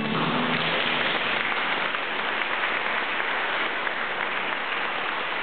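Audience applauding in a steady, even wash of clapping, starting as the men's choir's last chord ends.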